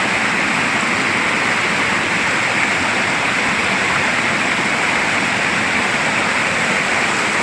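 Fast-flowing river water rushing, a steady unbroken rush.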